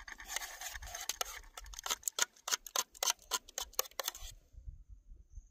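A metal spoon scraping and clicking against a small metal camp pot while scooping out thick gravy: a quick run of scrapes, then scattered clicks, stopping about four seconds in.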